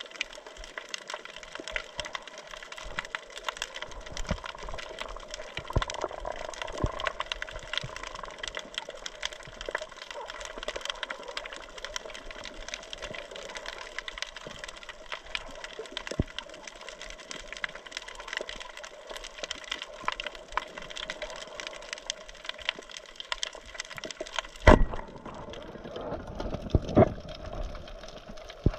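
Dense, steady crackling of many tiny clicks over water noise, the reef crackle of snapping shrimp heard underwater. About 25 seconds in there is a loud knock, and a few more knocks follow.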